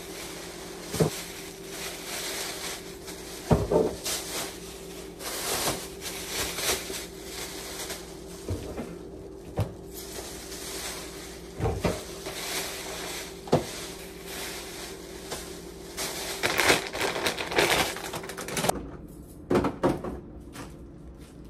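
Kitchen handling sounds: scattered sharp knocks and clacks of things being set down and doors or packaging handled, with stretches of rustling, over a steady low hum that drops out near the end.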